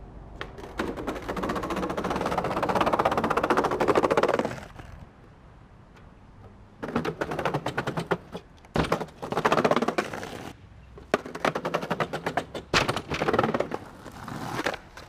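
Skateboard wheels rolling across the slatted wooden ramps of a bike track, making a fast run of clacks as they cross plank after plank. One long run comes in the first few seconds, then several shorter runs.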